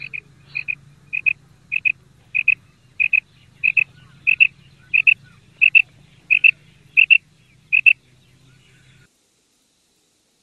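Female quail calling: a steady series of paired short, high notes, about one and a half pairs a second, growing louder and stopping about eight seconds in.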